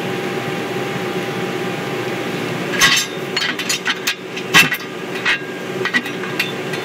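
Metal boiler parts and loose nuts and washers clinking and knocking as they are handled, a string of sharp knocks starting about three seconds in, two of them louder, over a steady machinery hum.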